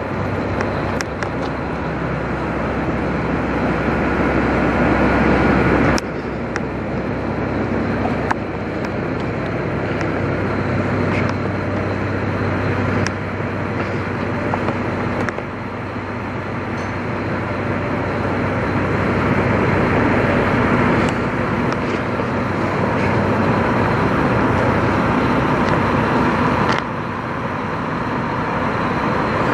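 Freightliner Classic semi truck's diesel engine idling with a steady low rumble. The sound jumps abruptly in level several times.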